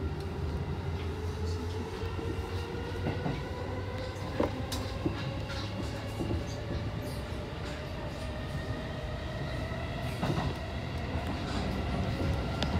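Electric commuter train running, heard from inside the front car: the drive whine rises slowly and steadily in pitch as the train gathers speed, over a low running rumble. A few sharp clicks of the wheels over rail joints come through, two of them about halfway through.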